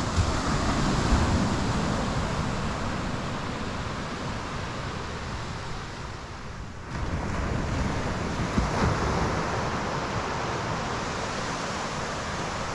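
Ocean surf washing on the beach as a steady rush, with wind gusting on the microphone. The rush dips for a moment about halfway through, then swells again.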